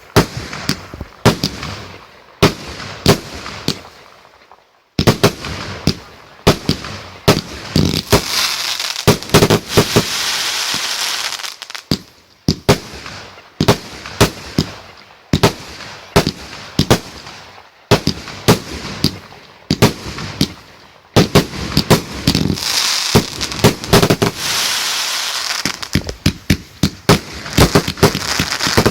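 Fireworks going off in rapid succession: a steady run of sharp bangs, several a second, with long stretches of dense crackling about eight seconds in and again about twenty-one seconds in.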